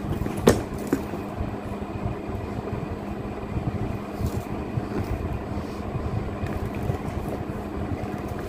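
A cardboard box being handled, with a sharp tap about half a second in and a few fainter knocks, over a steady low rumble and a faint hum.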